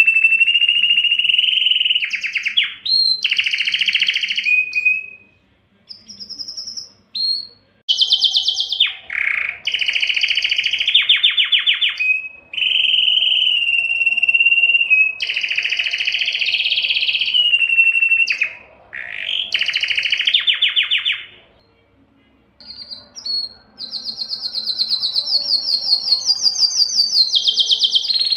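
Domestic canary singing: long phrases of rapid trills and held whistled notes, with short pauses about five, seven and twenty-two seconds in.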